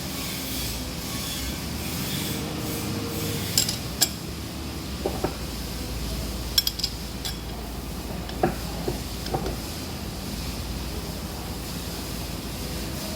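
Scattered sharp metal clinks and taps, about a dozen, from work on a lathe workpiece, over a steady low hum.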